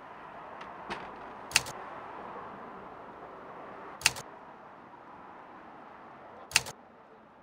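Three sharp double clicks of a camera shutter, evenly spaced about two and a half seconds apart, over a steady low hiss, with two fainter clicks just before the first.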